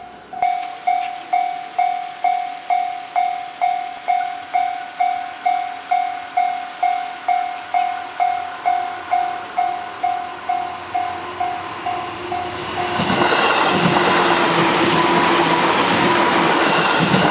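Japanese level-crossing warning bell ringing in a steady series of dings, a little over two a second. About thirteen seconds in, an electric train on the JR Hanwa Line runs through the crossing, its wheels and running noise drowning out the bell.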